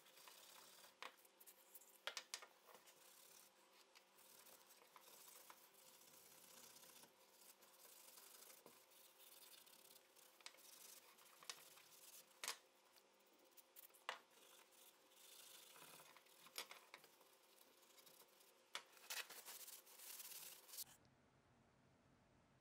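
Hand-scrubbing of rusty steel shotgun parts with an abrasive pad: a faint, scratchy rubbing broken by sharp metallic clicks. It stops near the end.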